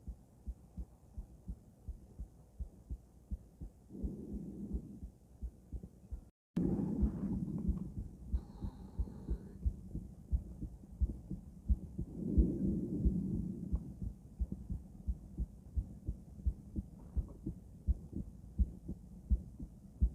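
A woman's heartbeat heard through a stethoscope: a steady run of low, paired lub-dub thumps, with a soft rushing sound swelling every few seconds. The sound drops out briefly about six seconds in and comes back louder.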